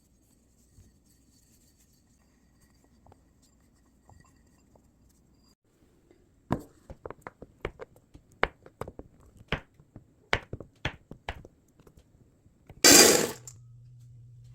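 Kitchen sounds: quiet at first, then a run of about ten sharp clicks and clinks of glass and utensils. Near the end comes a short loud burst, followed by a steady low hum that keeps going.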